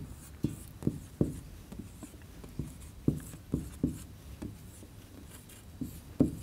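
Marker writing on a whiteboard: a run of short, quick strokes as digits of a long division are written, about two or three a second at first and fewer near the end.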